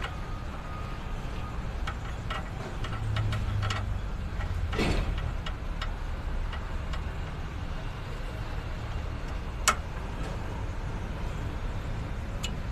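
Scattered light metallic clicks and taps of hand tools working a hose fitting, with one sharper click nearly ten seconds in, over a steady low rumble.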